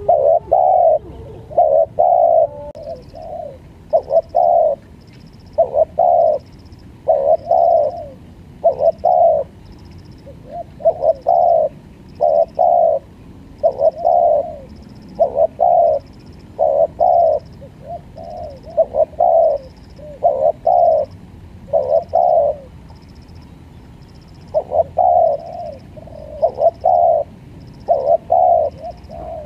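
Spotted dove cooing over and over, short coo notes in groups of two or three, with a brief pause about two-thirds of the way through.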